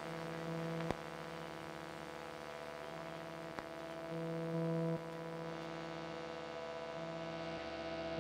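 Electronic ambient drone: several steady tones held over a low hum, stepping louder around four seconds in and easing back near five. Two sharp clicks cut through it, about one and three and a half seconds in.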